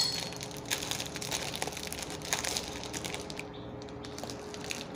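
Thin plastic bag crinkling and rustling as ripe bananas inside it are pressed and mashed with a glass bottle, in a run of small crackles.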